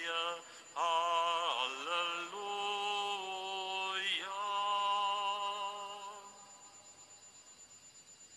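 A cantor singing long held notes to close a hymn, swooping in pitch between them. The singing fades out about six seconds in, leaving only a faint steady high tone.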